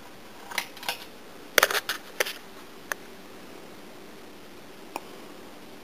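1997 Casablanca Lady Delta ceiling fan running on medium speed, its motor very quiet, with a faint steady sound under a few light clicks and taps in the first three seconds and one more near the end.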